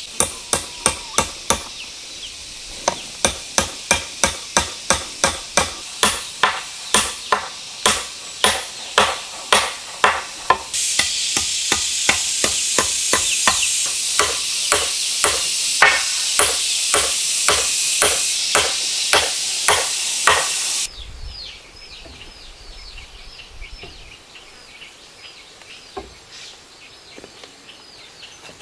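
Repeated hard blows of a tool on wood, about two a second and evenly spaced, under a steady high hiss that joins about a third of the way in. The blows and the hiss stop together, leaving short repeated chirps.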